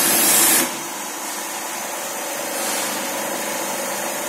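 High-pressure washer's 7.5 HP three-phase electric motor and three-piston ceramic plunger pump running; a loud spray hiss cuts off suddenly about half a second in, and the motor and pump run on steadily and more quietly without spraying.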